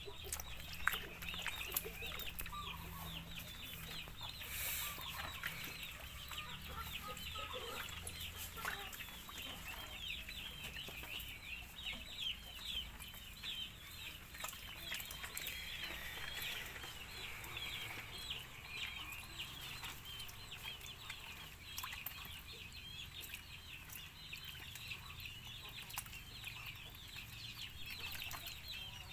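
Ducklings peeping without a break: many short, high-pitched peeps overlapping one another.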